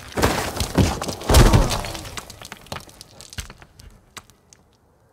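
Stone cracking and shattering, with three heavy crashes of falling chunks in the first second and a half, then small bits of rubble clicking and trickling down, thinning out to nothing.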